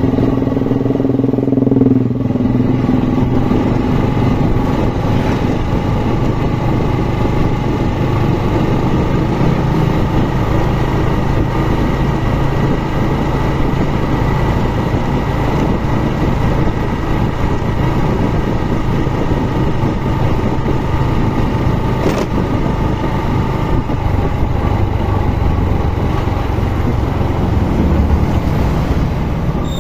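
Motorcycle engine running at a steady speed while riding, with a steady rushing noise over it.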